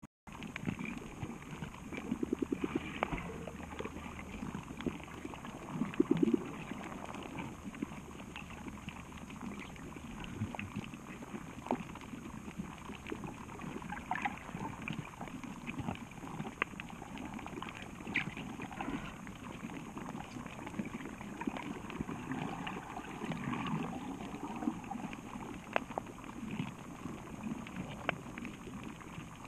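Muffled underwater sound of bubbling and gurgling water, with scattered sharp clicks throughout. There are two short, louder rattling bursts, one a couple of seconds in and the other about six seconds in.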